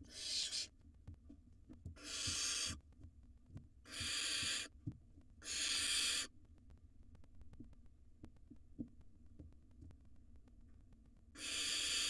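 Barn owl nestlings giving their raspy hissing begging calls: four hisses of under a second each in the first six seconds, a pause, then another near the end.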